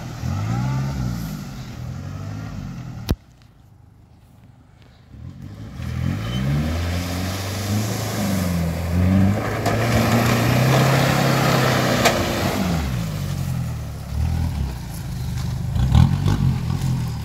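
A 4x4 SUV's engine revving up and down repeatedly as it drives through a muddy track, with a rushing noise mixed in midway. About three seconds in the sound drops abruptly to a low level for a couple of seconds before the revving returns.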